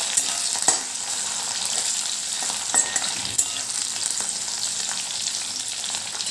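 Potato pieces and green chillies sizzling in hot oil in a metal kadhai as a metal spatula stirs them, with a few sharp clicks of the spatula against the pan.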